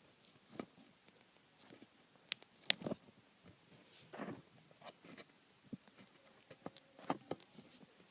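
Scattered light clicks and taps of an iPad stand and its glued-on piece being handled, with a few sharper clicks about two and a half seconds in and again near the end.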